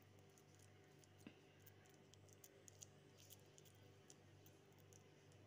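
Near silence: a faint low hum with scattered soft ticks from hands pressing and patting a moist soya-chunk cutlet mixture into patties.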